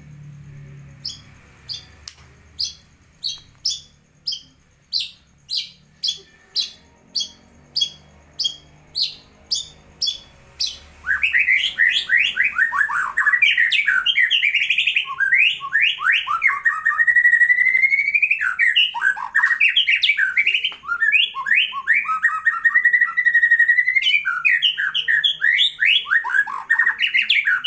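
White-rumped shama (murai batu) singing. It opens with a run of short, sharp, high notes about two a second, then breaks into a loud, rich, continuous song of quick sweeping phrases and drawn-out whistles.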